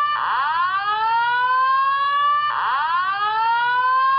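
Simplex Slow Whoop fire-alarm evacuation tone sounding from a Simplex TrueAlert speaker/strobe: two rising whoops, each sweeping upward in pitch for about two seconds, the second starting about two and a half seconds in.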